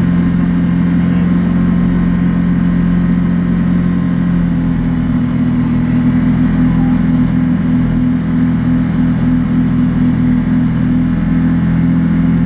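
Can-Am Commander 800 side-by-side's V-twin engine running steadily as it drives along the road, heard from inside the open cab; its note shifts about four and a half seconds in.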